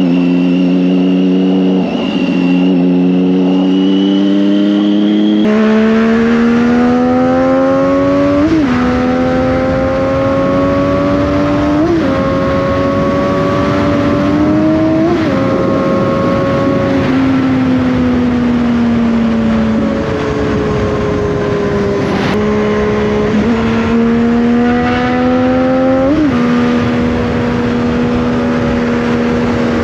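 Triumph Daytona 675's three-cylinder engine accelerating through the gears: the revs climb and drop sharply at three upshifts about three seconds apart, then fall steadily for a few seconds, then climb again to another upshift near the end.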